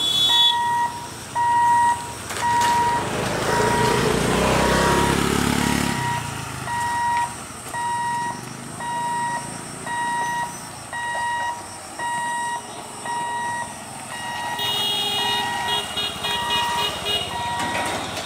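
Level-crossing warning beeper sounding an even beep about once a second while the boom barriers lower across the road. A motor vehicle passes loudly a few seconds in, and a faster, higher-pitched beeping joins near the end.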